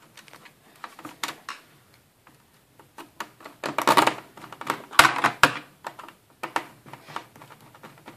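Small screwdriver clicking and scraping on a screw and the laptop case as a screw is fitted: irregular light ticks, with louder clattering clusters about four and five seconds in.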